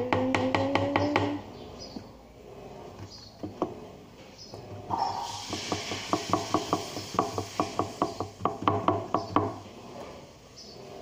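Rapid clacking of a utensil against a bowl as slime ingredients and red paint are stirred together, in two runs of quick knocks, the second starting about five seconds in and lasting several seconds.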